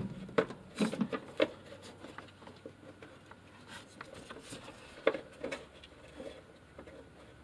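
Light clicks, taps and rubbing of a socket extension and nut against the metal studs and firewall while fumbling to start a clutch master cylinder's mounting nut by feel. A few sharp clicks come in the first second and a half and a couple more about five seconds in.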